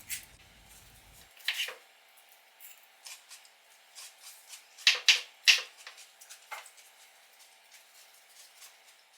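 Knife cutting fresh vegetables on a cutting board: scattered, irregular taps and clicks, with the loudest two about five seconds in.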